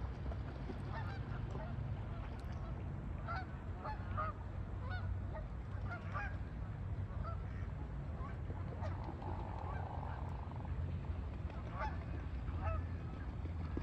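Geese of a large flock honking: many short honks from several birds, scattered and overlapping, over a steady low rumble.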